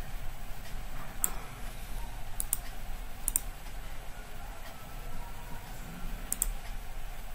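Computer mouse button clicks: a single click about a second in, then quick pairs of clicks around two and a half seconds, three and a half seconds and near the end, over a low steady hum.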